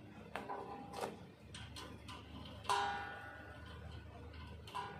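Clicks and metallic knocks as the blade holders on a paper creasing, perforating and cutting machine are slid along their metal bar and set by hand. Several knocks ring briefly, the loudest about two and a half seconds in.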